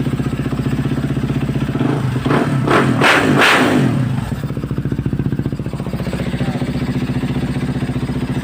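450cc motorcycle engine idling steadily, with one throttle blip: it revs up about two seconds in and falls back to idle by the middle. It is running after starting on a single press of the starter, now that power reaches the fuel pump.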